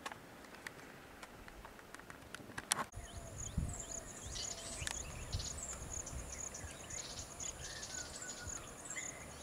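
Outdoor forest ambience: faint clicks at first, then, from about three seconds in, insects buzzing in a pulsing high drone with birds chirping over it and a low rumble underneath.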